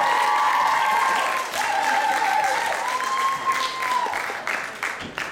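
Audience cheering and applauding, with several high-pitched shouts held together over the clapping; the shouting fades about four seconds in, leaving scattered clapping.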